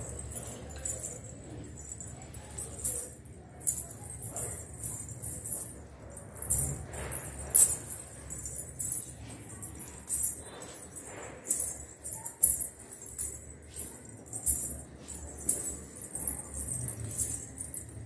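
Silver anklets (payal) with small bells jingling in quick, uneven shakes as bare feet step and lift.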